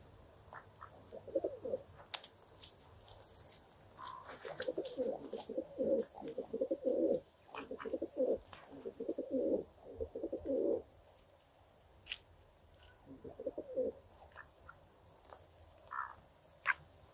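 Feral pigeons cooing in repeated low, pulsing phrases, thickest through the middle of the stretch, with scattered light clicks in between.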